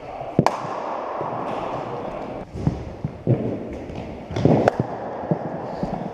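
Indoor cricket nets: two sharp cracks of a hard cricket ball hitting a bat, about half a second in and near the end, with duller thuds of balls landing on the matting and netting in the echoing hall.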